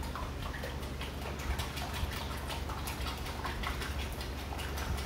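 A fork beating eggs in a glass bowl: rapid, irregular clicks and taps of the fork against the glass, over a steady low hum.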